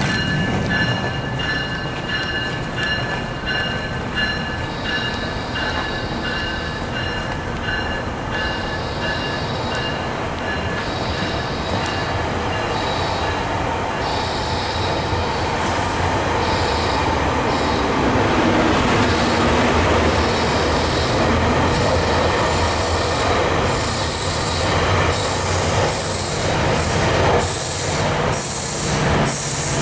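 GO Transit bi-level passenger coaches rolling slowly past on steel wheels: a steady rumble with high wheel squeal through the first half and a regular clicking over the rails. Near the end, the low drone of the diesel locomotive pushing at the rear grows louder.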